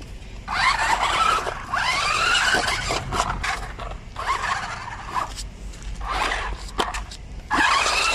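Electric drive motors and gears of a toy RC stunt car whining in about five spurts, the pitch rising and falling as it speeds up and slows, with its tyres rolling on concrete.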